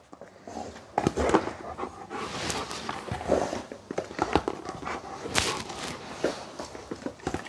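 A dog panting as it moves about on carpet, with several sharp knocks and clatters of plastic toys being picked up and dropped into a plastic tub.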